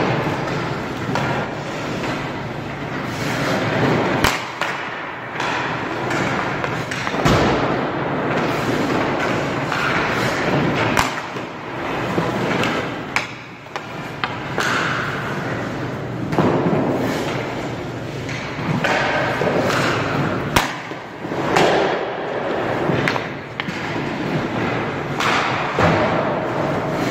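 Ice hockey practice on a rink: pucks are shot with a stick and strike the goalie's pads and equipment in several sharp smacks, over the steady scrape and hiss of skate blades on the ice.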